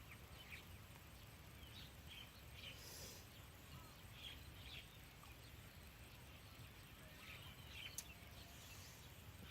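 Faint outdoor ambience: scattered short bird chirps over a low, steady background noise, with one sharp tick about eight seconds in.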